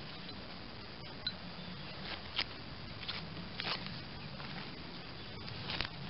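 Tape being peeled off the threaded screw of a cast iron screw jack: a handful of short crackling rips, spread out, over a faint steady low hum.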